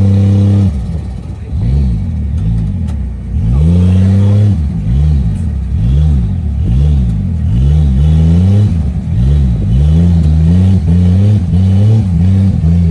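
Off-road 4x4 mud truck engine revved hard and repeatedly: held high at first, then blipped up and down about once a second.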